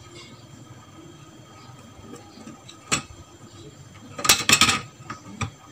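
Small hand tools and wires being handled at a VFD's screw-terminal control block: light handling noise, a single sharp click about three seconds in, then a brief burst of clicking and clatter about a second later.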